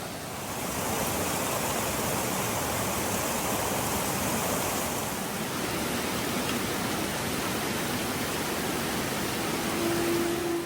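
Steady outdoor rushing noise that swells about half a second in and holds even. A flute-like music note comes in right at the end.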